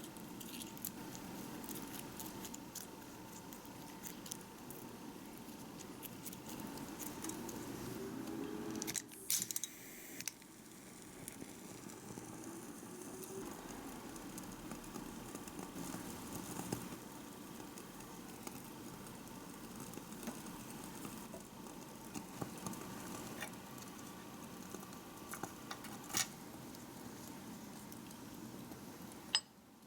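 Small-scale cooking with miniature utensils: light clicking, tapping and scraping over a faint steady hiss, with a louder clatter about nine seconds in.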